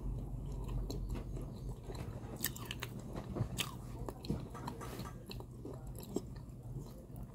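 Close-up chewing of crunchy baked clay from a clay pot, with scattered sharp crunches over a steady low hum.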